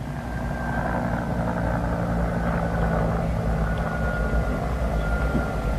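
Aircraft engine rumbling steadily, with a thin high whine that slowly falls in pitch. It grows louder about a second in.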